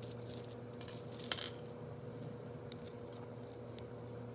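Small seashells clicking and clinking against each other as they are dropped around a potted succulent as top dressing: a cluster of light clicks in the first second and a half, then a few scattered ones.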